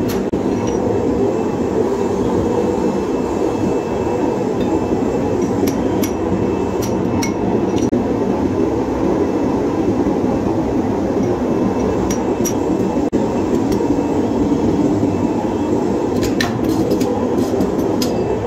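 Flywheel-driven mechanical power press running with a steady, loud mechanical noise, broken by clusters of sharp metal clinks about six seconds in, around twelve seconds and again near the end, as steel pin blanks are handled with tongs at the die.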